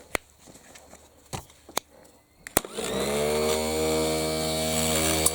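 Rebuilt Moskvich electric starter motor, wired straight to a battery on the bench: a few sharp clicks, then about halfway through it spins up with a quick rising whine and runs free at a steady pitch. It runs quietly, with a slight rattle from the bendix drive.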